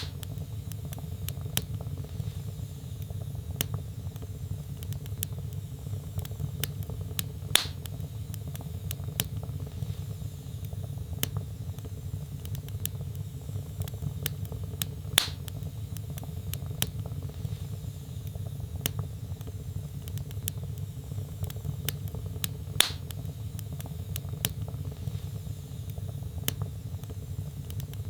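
Wood fire crackling in a fireplace, with a steady low rumble under many small snaps and three louder pops spaced about seven and a half seconds apart.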